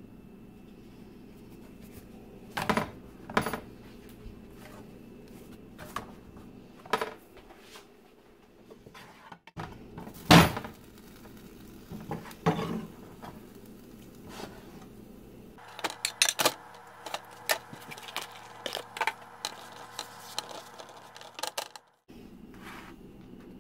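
Kitchen utensils knocking and clicking against a nonstick frying pan as flour-tortilla quesadillas are filled and folded, over a steady low hum. Scattered knocks, the loudest about ten seconds in, then a quick run of light clicks near the end.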